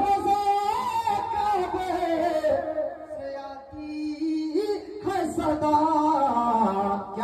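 A man singing a naat unaccompanied, drawing out long melismatic held notes that glide up and down, softer for a moment near the middle.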